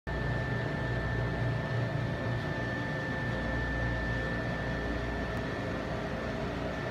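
Steady room tone of running equipment: a low mechanical hum and air noise with a thin, constant high whine over it.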